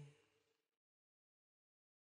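Near silence: the tail of the song's last sung note dies away just after the start, then complete silence.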